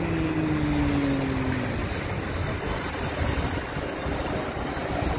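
Steady outdoor rumble of road traffic. A held tone sounds over it for the first two seconds, falling slightly in pitch.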